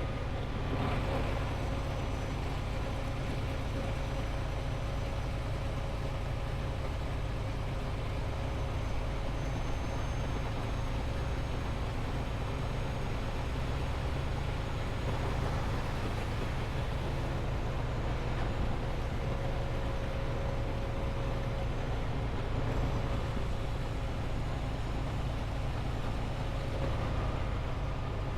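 Semi truck running: a steady low drone with a faint constant hum above it.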